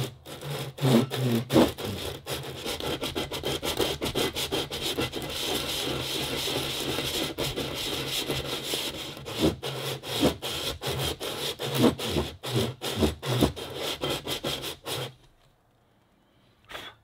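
A bronze raw water pump housing rubbed by hand against a sandpaper disc in many quick back-and-forth strokes: the mating face is being lapped flat and true. The rasping stops about 15 seconds in, followed by a single light knock.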